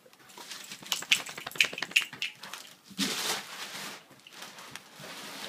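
Paper crinkling and tearing as a present is unwrapped: a run of quick crackles, then a longer tearing rip about three seconds in.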